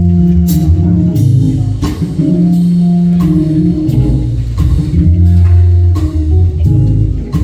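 Church band playing instrumental music, with a sustained bass line and drum hits about every three-quarters of a second.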